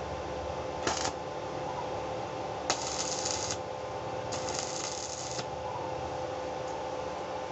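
Arc welding crackle from tack welds on a drill bit made of car leaf-spring steel: three bursts, each struck with a click, one short about a second in and two of about a second each near the middle.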